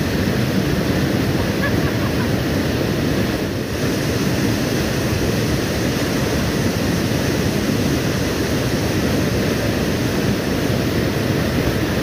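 Small waterfall pouring into a rocky plunge pool: a loud, steady rush of white water close by.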